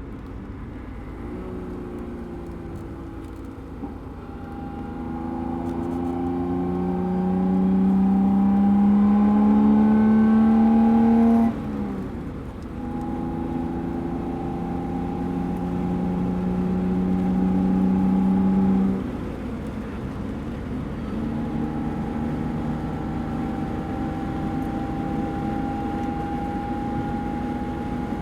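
BMW car engine under hard acceleration: its pitch climbs steadily, louder as it goes, then drops abruptly at a gear change about a third of the way in. It climbs again more gently, drops at a second shift about two-thirds of the way in, then holds at a near-steady cruise.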